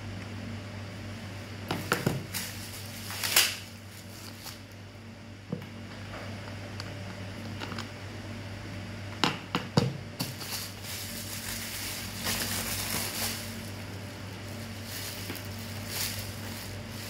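Packaging and contents being handled during an unboxing: crackly rustling and crinkling with a few sharp knocks and clicks, over a steady low hum.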